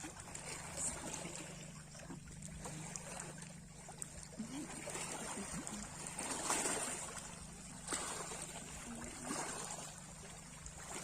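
Sea waves washing and swelling, loudest about six and a half seconds in, over a steady low hum.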